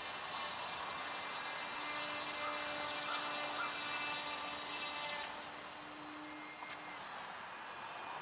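High-pitched whine of the RC Factory Edge 540 Mini's electric motor and propeller at speed. It drops somewhat in level about five seconds in, as the plane leaves the hand and flies off.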